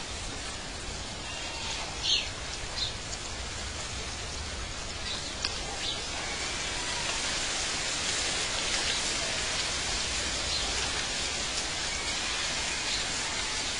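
A steady, rain-like hiss, with a few brief high chirps in the first six seconds.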